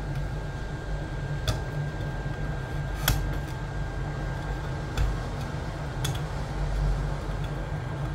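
Hot-air rework gun blowing with a steady fan hum and a thin whine, as it heats the detector's plastic speaker housing. A metal pick scraping in the housing gives a few sharp clicks, about one every second or two.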